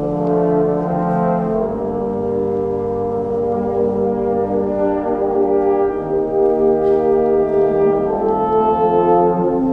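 Wind band playing, with the brass section holding sustained chords in several parts together.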